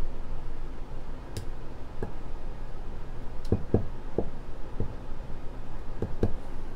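Silicone spatula spreading and smoothing a layer of mascarpone cream in a dish, giving a series of soft taps and squishes over a low steady hum.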